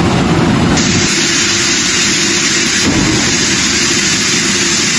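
Tornado wind rushing past, loud and steady. About a second in, a harsh hiss jumps up in the upper range and holds.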